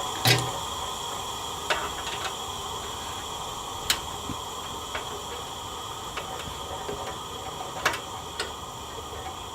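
Steady hiss of a vacuum line drawing the air out of a 6-inch UV point-repair packer, deflating it after the cure, with a few short clicks and knocks scattered through.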